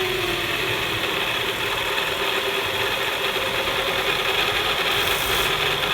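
A 2014 Honda CR-V's drivetrain turning steadily with the wheels off the ground, carrying a scratchy grinding hum like a wheel bearing: the sign of a worn drive shaft center carrier bearing.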